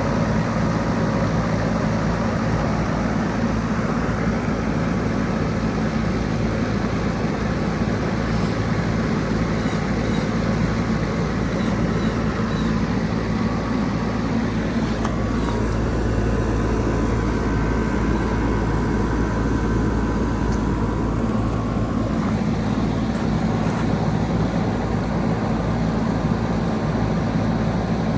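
Goodman GSZB4 2.5-ton heat pump outdoor unit running steadily through its defrost cycle: a low compressor hum under a constant rushing noise.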